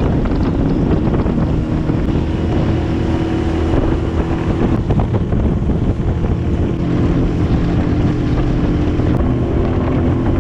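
Outboard motor of a small aluminium tinny running steadily at cruising speed, with water rushing past the hull and wind buffeting the microphone.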